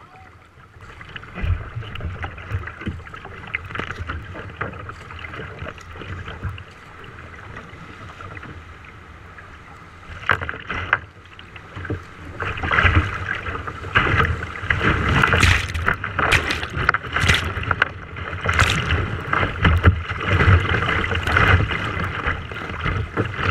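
Rushing whitewater of a river rapid, with waves slapping and splashing against a kayak's hull. The rush gets louder about twelve seconds in, with sharp splashes as the kayak runs the rough water.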